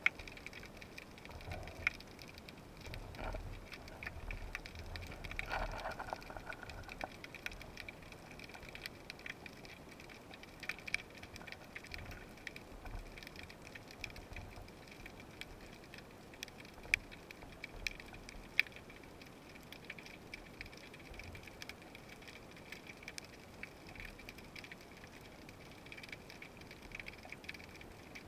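Underwater ambience heard through a camera housing: a faint, steady crackle of many small clicks, with a few louder ticks. A low rumble runs through the first several seconds.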